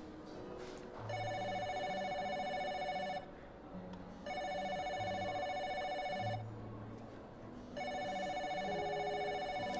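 Phone ringing with an electronic trilling ring: three rings of about two seconds each, roughly a second apart.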